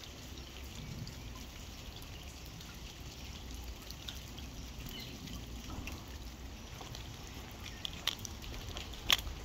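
Rainwater dripping from the trees into puddles of standing floodwater, scattered drips over a steady low background. A few sharper clicks near the end, the loudest about nine seconds in.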